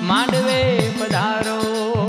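Gujarati devotional folk music for the goddess Meldi Maa. A low drum dips in pitch on each stroke, about three times a second, under a bending melody line, with sharp percussion clicks running through.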